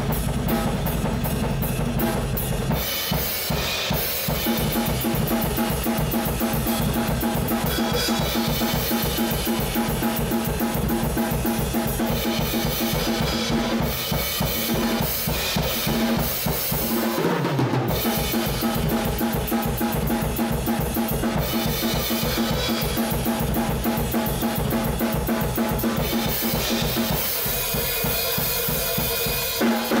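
Music: a drum kit playing a steady beat on bass drum and snare under sustained pitched instruments, with the low drums dropping out briefly a little past halfway.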